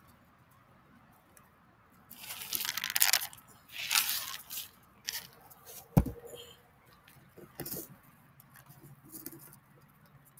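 Dogs crunching and chewing dry kibble close up, in irregular noisy bursts, with one sharp click about six seconds in.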